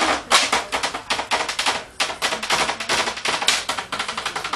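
A rapid, irregular run of sharp clicks and cracks, several a second.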